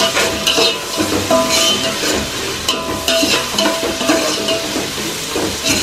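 Sliced onions, tomatoes and green chillies sizzling in hot oil in an aluminium pot, stirred with a spoon that scrapes against the pot again and again. The vegetables are being sautéed until lightly golden.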